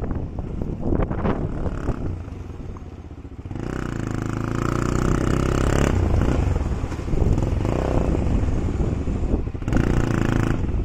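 Motorcycle engine running during a ride, with wind on the microphone. About a third of the way in, the engine note becomes louder and steadier.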